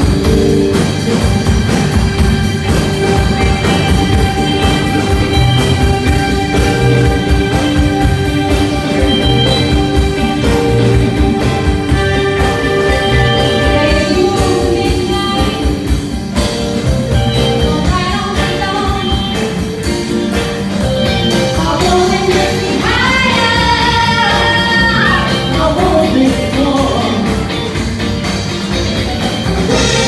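Live band with drum kit, bass, electric guitar and keyboard playing an up-tempo disco-rock song with a steady beat, with voices singing over it, strongest in the second half.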